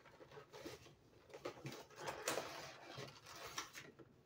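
Action-figure packaging being handled as the figure and its parts are taken out of the box: irregular rustling and clicking, the loudest burst about two seconds in.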